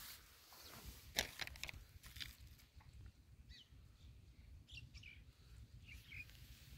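Quiet outdoor ambience: a few soft crunches of footsteps on dry ground and straw stubble around a second in, with faint short bird chirps scattered through.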